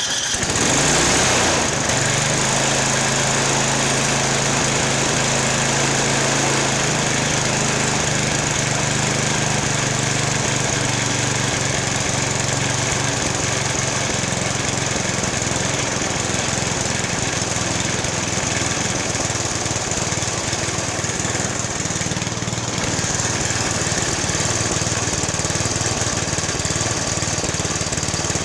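Snowblower's small gasoline engine running steadily at high speed after a brief surge in the first couple of seconds. It is over-revving because the governor's maximum-speed screw was cranked in.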